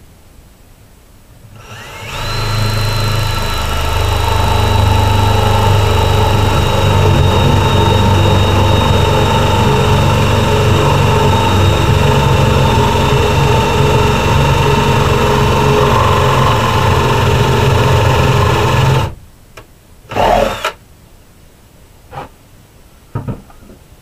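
Ryobi power drill running under load for about seventeen seconds, boring into wood. Its high whine sinks slightly in pitch over a steady low hum, then cuts off suddenly. About a second later comes one short spin-up of the drill, then a couple of light knocks.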